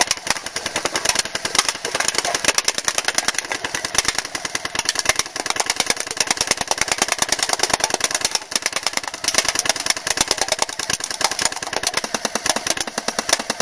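Airsoft Thompson M1A1 electric gun firing one long, unbroken full-auto burst: a rapid, even rattle of shots from the motor-driven gearbox as BBs knock down a pyramid of cans.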